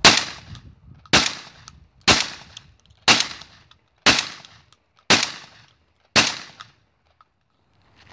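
Tactical shotgun firing seven shots in steady succession, about one a second. Each is a sharp, loud blast with a short ringing tail that fades before the next.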